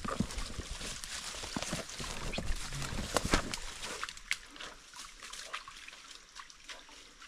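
Rustling and crackling of leaves and twigs with footsteps as a hunter and a coonhound push through thick undergrowth; the crackling is busiest in the first few seconds and thins out after about four seconds.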